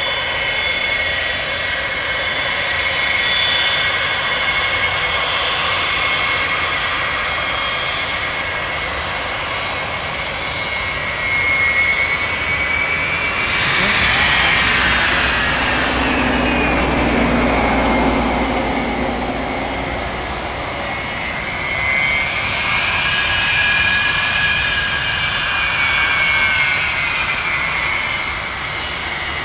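Boeing E-3 Sentry AWACS taxiing on its four Pratt & Whitney TF33 turbofans: a steady jet whine over a broad roar. The noise is loudest about halfway through, when the aircraft passes closest, and the whine slides down in pitch as it goes by. Later the whine rises and falls in pitch again.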